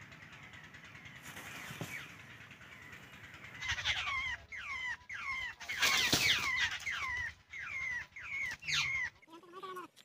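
A babbler giving a run of harsh, downward-sliding calls, about two a second, starting about four seconds in and stopping shortly before the end; only faint bird sounds before the run.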